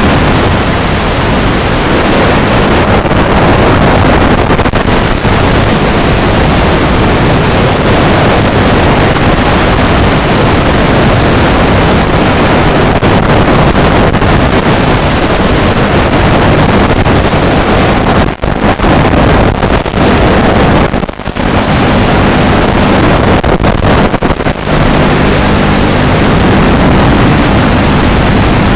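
Loud, steady rushing noise on the audio of a quadcopter's analog FPV video feed during flight, broken by a few brief dropouts about two-thirds of the way through.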